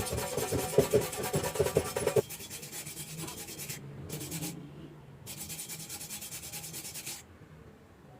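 Stick-welding arc from a 2.6 mm E6013 rod, crackling loudly for about two seconds. It then drops to a quieter hiss that cuts out and restarts twice before stopping about seven seconds in.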